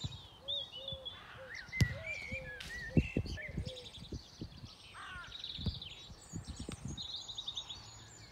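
Garden birds chirping and calling throughout, with a few sharp thuds of a football being kicked, the two loudest about two and three seconds in.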